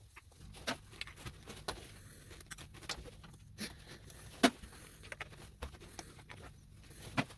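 Irregular sharp clicks and clinks of small metal parts as copper and brass connectors are cut apart and handled, the loudest about four and a half seconds in, over a faint low steady hum.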